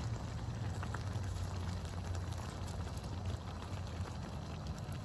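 Thick pot-pie stew simmering in a pot on a propane camp stove, bubbling with small pops and ticks while a wooden spoon stirs it, over the steady low rumble of the burner.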